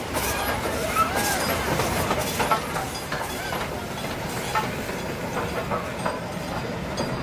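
Peppercorn A1 Pacific steam locomotive 60163 Tornado passing with its train: a steady running noise with scattered sharp clicks of wheels over rail joints.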